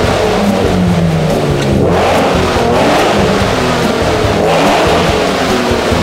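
Cobra engine running loud through its newly welded exhaust shortly after a cold start, revved in repeated surges. The revs drop back briefly about two seconds in and again past four seconds.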